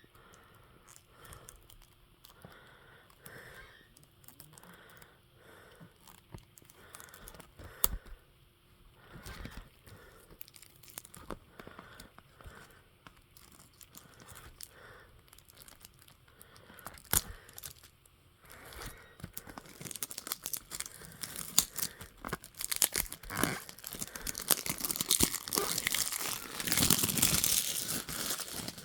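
Plastic wrapping being picked at and torn off a new CD case. Scattered scratches and clicks give way, about two-thirds of the way in, to denser and louder crinkling and tearing, strongest near the end. The wrapping is stubborn to get open.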